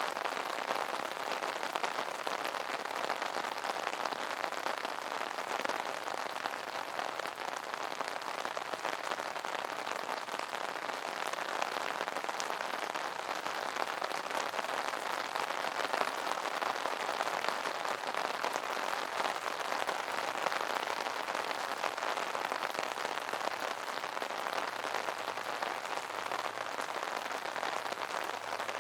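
Rain falling steadily on an umbrella canopy: a dense, even patter of drops.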